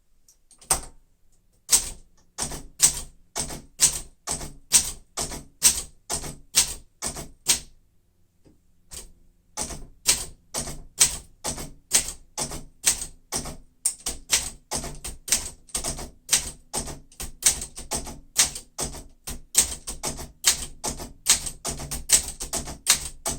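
1972 Olympia SM9 manual typewriter being typed on: a steady run of sharp typebar strikes against the platen, a few keystrokes a second. There is a pause of about a second and a half partway through, then faster typing.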